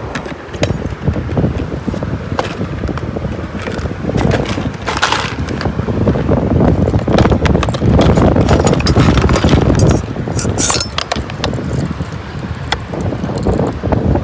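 Strong wind buffeting the microphone in a steady low rumble, with scattered short clicks and knocks throughout.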